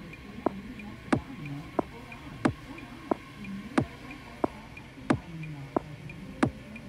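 A steady ticking beat of sharp clicks, about three every two seconds, every other one louder, over a faint low hum.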